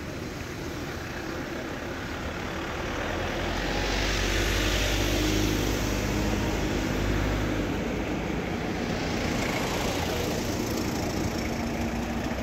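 Road traffic crawling past at close range: car and van engines running and tyres on asphalt. It swells about three seconds in, with the loudest, closest pass and a low engine hum from about four to seven seconds in.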